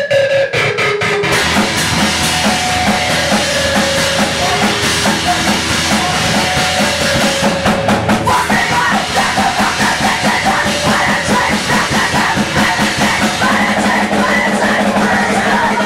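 Pop-punk band playing live on electric guitar, bass guitar and drum kit, with a few separate hits at the start before the whole band comes in together about a second in.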